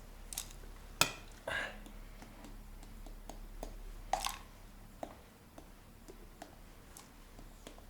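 Faint handling noises in a small room: a few sharp clicks and knocks, the loudest about a second in, with quieter ticks scattered through.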